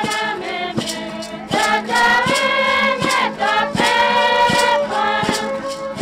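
Guarani Mbya group song: a choir of voices singing in unison over a steady struck beat, about one hit every three-quarters of a second, with long held notes in the second half.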